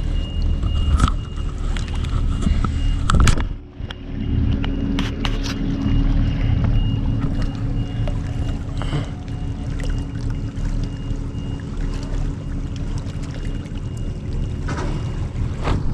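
Steady low drone of a moored car ferry's engines running, with a few sharp knocks over it; the sound drops away briefly about three and a half seconds in.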